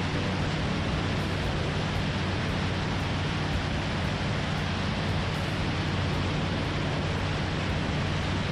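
Open-cockpit gyroplane in flight: a steady low engine and propeller drone under a constant rush of wind over the microphone.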